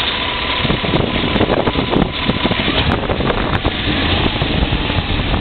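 A 1994 Chevrolet Silverado 1500's engine running with a rapid knock, which comes on as the oil pressure drops; the owner suspects a rod knock on the right side.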